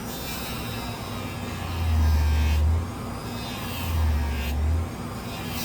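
A small electric power tool runs with a steady hum while it works on the metal of a folding knife. Its sound swells twice, each swell lasting about a second.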